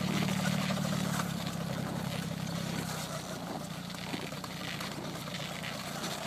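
Thiokol Imp snowcat's engine running steadily as the tracked machine drives away, the hum fading from about a second in.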